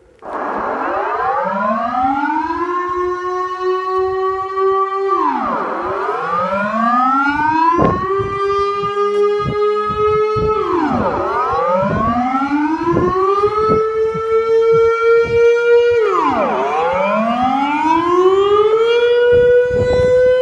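Civil defence siren sounding its noon test alarm, starting up right at the beginning with a rising and falling wail. Each cycle climbs over about two seconds, holds, then drops sharply, repeating about every five and a half seconds.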